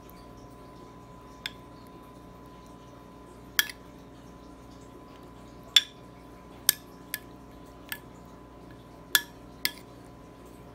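Metal spoon clinking against a glass dish of thick, chunky sauce: about eight short, sharp clinks at uneven intervals, over a faint steady hum.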